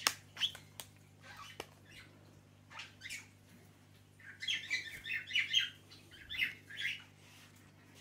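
Cockatiel chirping, a quick run of short high calls through the second half, after a few sharp clicks in the first two seconds.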